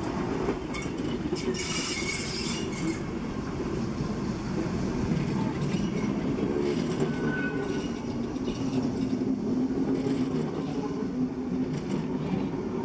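Steam-hauled train of passenger coaches rolling past, a steady rumble of wheels on the rails with clicks over the rail joints in the first few seconds. A brief wheel squeal about seven seconds in.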